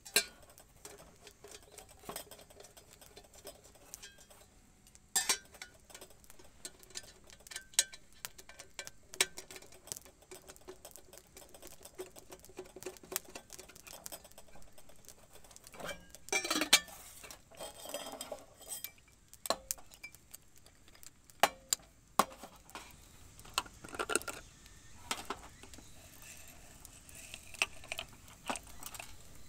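Coffee gear being handled: scattered clinks and taps of a metal kettle, a hand coffee grinder and a glass jar of coffee beans, with a short cluster of knocks about halfway through.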